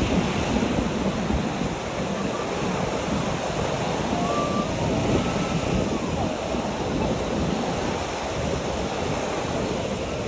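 Sea surf washing onto a sandy beach, a steady wash of waves, with wind buffeting the microphone in low rumbling gusts.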